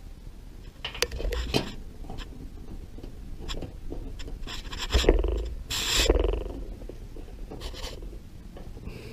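Hand screwdriver turning a screw into the sheet-metal cabinet of a front-load washer: scattered scrapes and small clicks of metal on metal, with louder scraping knocks about five and six seconds in.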